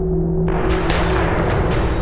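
Dramatic opening-title music: a steady low drone with several sharp percussive hits, each trailing off in a noisy swell.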